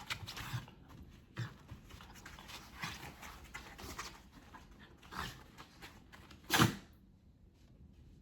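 A dog making short, scattered play sounds while roughhousing with a cat, the loudest a single sharp burst about six and a half seconds in.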